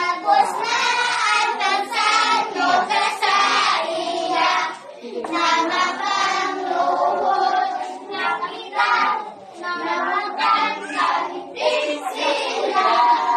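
A group of young children singing together, with hand clapping.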